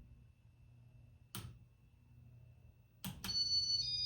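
Button clicks on a Casablanca IntelliTouch wall control over the faint hum of the fan. About three seconds in, two quick clicks are followed by a high electronic beeping tone that steps in pitch, which the owner takes as the sign that he has reversed the fan.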